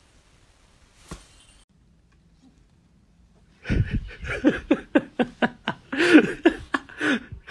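Husky puppy vocalizing in a quick run of short yelps and whines that arch up and down in pitch, about three a second, starting about three and a half seconds in. Before that it is quiet apart from a single click about a second in.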